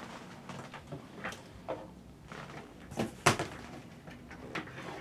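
Small objects handled on a fly-tying desk: a few short knocks and clatters, the sharpest pair about three seconds in.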